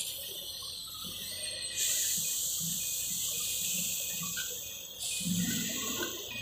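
Gravel pouring from a Komatsu wheel loader's bucket into a dump-truck trailer: a steady hiss of sliding stones that swells about two seconds in and eases off around five seconds.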